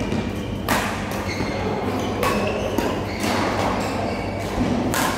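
Badminton rackets striking a shuttlecock during a rally: about five sharp cracks at uneven intervals, a second or more apart, each ringing briefly in a large hall, over a steady low hum.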